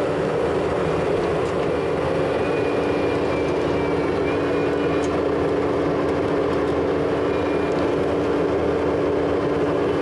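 Bobcat T770 compact track loader's diesel engine running steadily, with a steady hum, while its tree-puller claw digs under a rock and lifts it.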